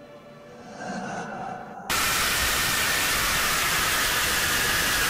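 Faint eerie horror-clip ambience, then about two seconds in a sudden, very loud blast of harsh static-like noise: a jumpscare scream sound effect.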